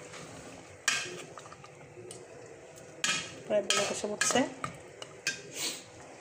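Spoon stirring chicken-and-potato curry in an aluminium pot, clinking and scraping against the pot's side. There is a single knock about a second in, then a quick run of knocks and scrapes from about three seconds in.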